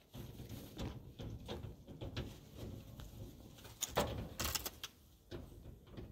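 A metal-framed door rattling and clicking as a small child works its handle: a run of irregular knocks and clatters, loudest around four seconds in.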